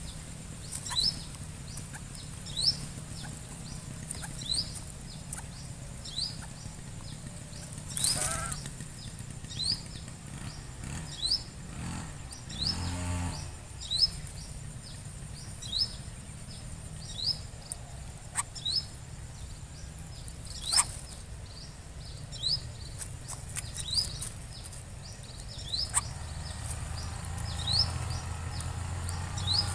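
Short high chirps, each rising sharply, repeated about once a second, with scattered light clicks and rustles and a louder rustle about eight seconds in.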